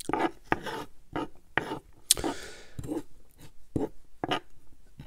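A metal spoon scraping and clinking against the food and its container in a run of short, irregular rasps and taps, with one longer scrape about two seconds in.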